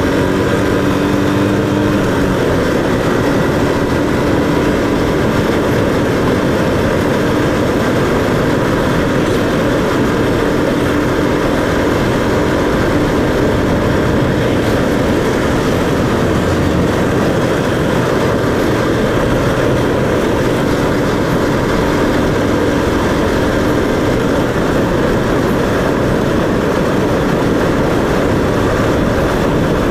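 Steady rush of riding wind on the microphone over a motorcycle engine running at cruising speed, the engine's tone coming through faintly at times.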